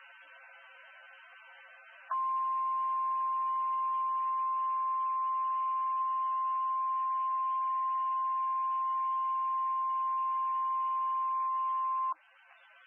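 NOAA Weather Radio warning alarm tone, the 1050 Hz signal that sets off weather-alert receivers ahead of a warning. It is a single loud, steady, unwavering tone that starts about two seconds in, holds for about ten seconds and cuts off sharply. Faint radio hiss comes before and after it.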